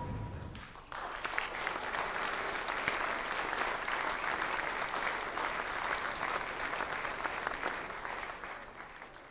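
Audience applauding, many hands clapping together; it starts about a second in and fades out near the end.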